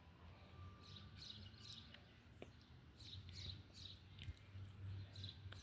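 Near silence: faint high bird chirps repeating over a low steady hum.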